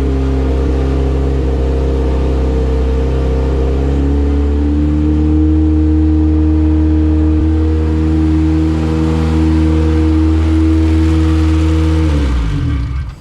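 Honda B18 four-cylinder engine idling steadily, with the idle rising a little about four and a half seconds in. Near the end it winds down and stops. It is idling lean, at about 17 AFR.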